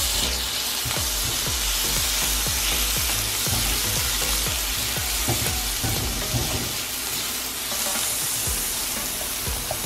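Diced green bell pepper, onion and minced garlic sizzling steadily in a nonstick frying pan, stirred with a silicone spatula that makes frequent short scraping strokes against the pan.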